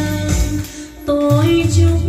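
Karaoke: a woman singing into a microphone over a recorded backing track with a bass line and a steady beat. The music drops briefly just before a second in, then a held sung note comes back.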